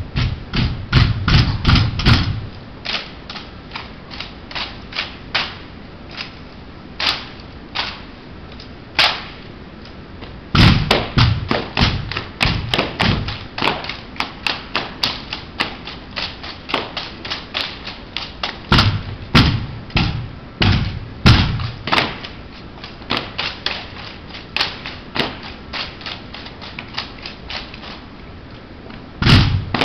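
Drill team's rifles handled in unison: quick runs of sharp clacks as hands slap the rifles, with heavier thuds of rifle butts on the hard floor, and short pauses between sequences.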